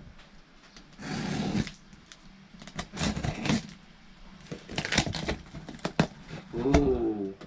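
Box cutter slicing packing tape on a cardboard box and the tape being pulled off: short rasping scrapes and rips with scattered clicks and taps on the cardboard, and a short wavering squeak near the end.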